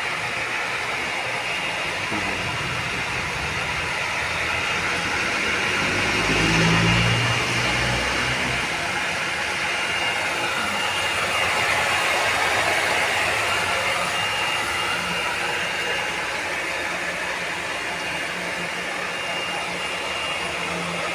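Small electric water pump running steadily, pumping into a pressure tank: a constant motor hum with a thin, steady high whine. A brief low rumble swells about seven seconds in.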